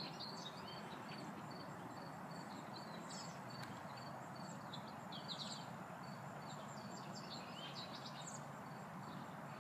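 Small birds chirping in short calls scattered throughout, over a steady faint outdoor background hum and a thin continuous high-pitched tone.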